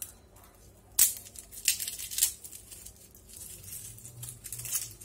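Garlic cloves being pulled off a bulb by hand: a sharp crack about a second in, then the dry papery skin crackling and rustling in short bursts.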